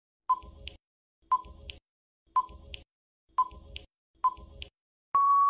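Quiz countdown timer sound effect: five short beeps about a second apart, then one longer steady beep near the end as the time runs out.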